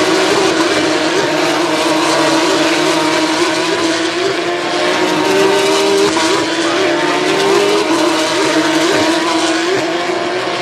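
FIA Formula 3 race cars' naturally aspirated V6 engines running hard at high revs, a loud, sustained engine note that wavers slightly in pitch.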